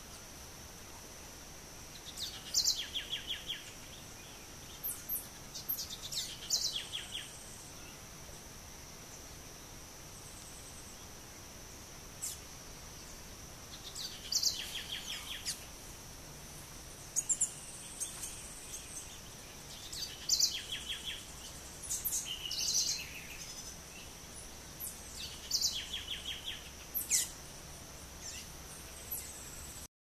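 Small songbirds chirping in short clusters of squeaky calls and quick trills every few seconds, over a steady high-pitched insect drone.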